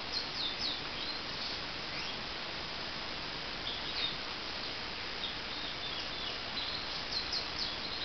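Goldfinch × Irish fancy canary mule twittering: short, high, quickly gliding chirps in scattered clusters, busiest near the start and again near the end, over a steady background hiss.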